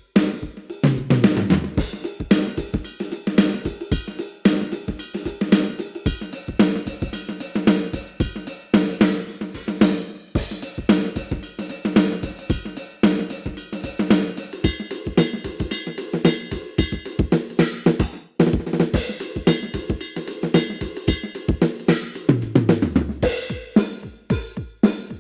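Sampled drum kit from a Ketron SD90 SoundFont playing a busy groove of kick, snare, hi-hat and cymbals, with a falling run of low drums about a second in and again near the end.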